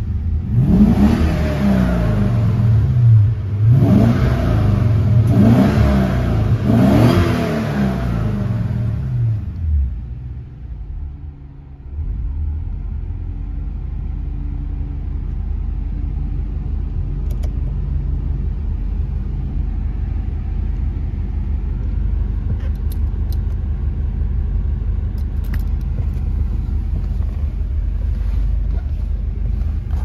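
Porsche 928 S4's 5.0-litre V8 revved several times, each rev climbing and falling back, then settling about ten seconds in to a steady low idle.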